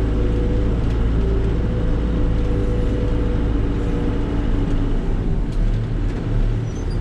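Volvo BL70 backhoe loader's four-cylinder turbocharged diesel engine running steadily as the machine is driven, with a brief dip in level near the end.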